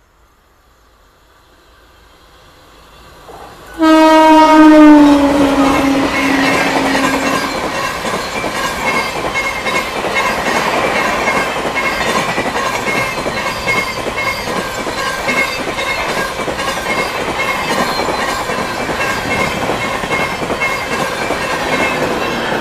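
An express train approaches with a building rumble, then sounds a loud horn about four seconds in as the locomotive reaches the platform. The horn's pitch drops as the locomotive passes. Then the coaches run through at speed with a steady, rhythmic clatter of wheels over the rail joints.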